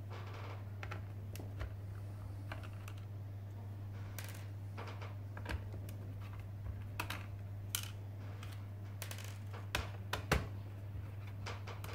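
Small screwdriver working tiny screws out of a laptop's plastic case: irregular light clicks and ticks of metal on plastic, a few louder ones near the end, over a steady low hum.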